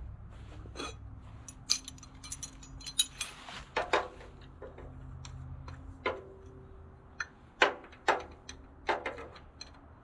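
Irregular metal clinks and clanks of hand tools and tractor parts being handled during a teardown, about a dozen sharp knocks, a couple of them ringing on briefly. A low hum fades out in the first second or so.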